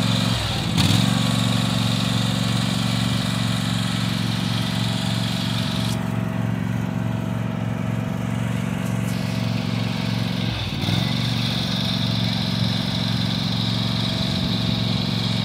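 Husqvarna riding lawn mower's engine running steadily while it is driven slowly.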